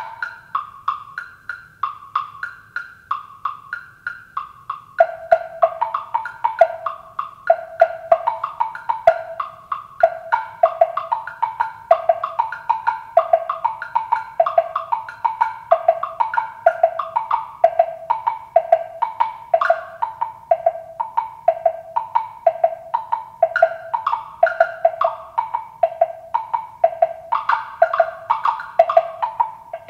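Jamblocks (plastic wood-block substitutes) struck with mallets by three players in a quick interlocking rhythm, standing in for log drum, temple block and wood block: short dry knocks at several pitches. A lower-pitched block joins about five seconds in.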